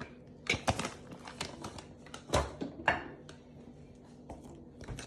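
Clicks and light knocks of kitchen utensils and containers being handled, a few sharp taps loudest about two and a half and three seconds in, over a faint steady hum.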